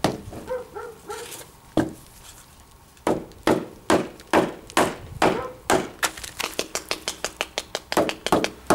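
Hammer blows on a bull's head resting on a wooden chopping stump. Two blows near the start and a lull, then steady blows about two a second that turn into quicker, lighter knocks near the end.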